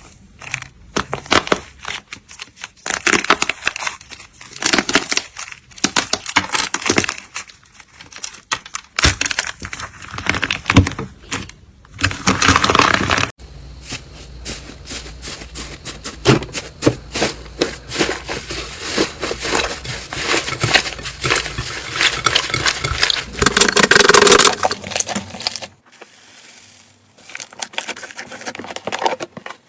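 Slime being squeezed and poked by hand, with rapid crackling and popping clicks of trapped air. The sound changes abruptly twice, about halfway through and near the end.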